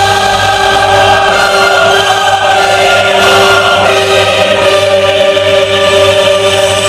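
Loud music played through a DJ sound system, with long held notes over a steady low bass.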